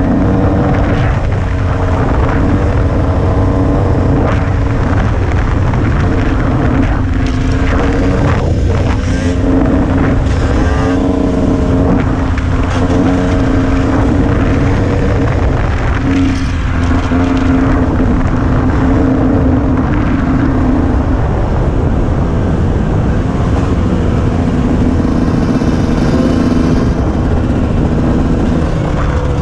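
Dirt bike engine running steadily at riding speed, its pitch shifting slightly with the throttle, under heavy wind rumble on the helmet-mounted microphone.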